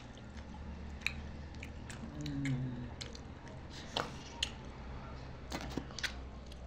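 People chewing and eating biryani, with scattered small clicks and wet smacks, over a low steady hum. A short hummed murmur comes about two seconds in.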